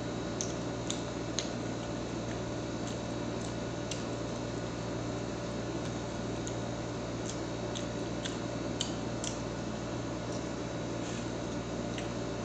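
Steady background hum, with faint scattered clicks and wet smacks from eating fries dipped in a plastic cup of cheese sauce.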